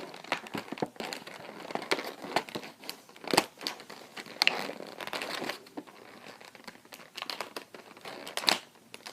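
Stiff plastic toy packaging being crinkled and pulled at by hand, with irregular crackles and sharp snaps as it resists opening.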